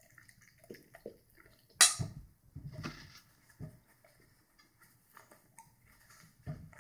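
Fork and knife clinking and scraping on a dinner plate: scattered light clicks, with one sharp, loud clink about two seconds in.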